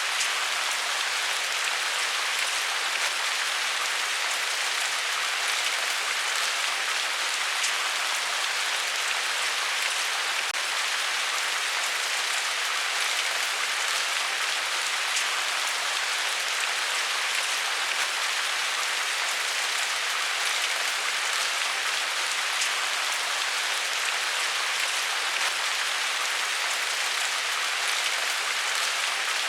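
Steady rain falling on a surface, an even hiss with individual drops ticking here and there.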